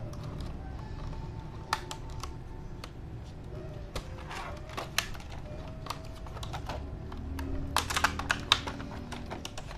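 Scattered light clicks and taps of hands handling a laptop HDD caddy and its small plastic and metal parts, with a quick run of clicks about eight seconds in, over a low steady hum.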